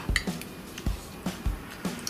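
Soft background music with a steady low beat, with forks lightly clinking and scraping on ceramic plates of noodles.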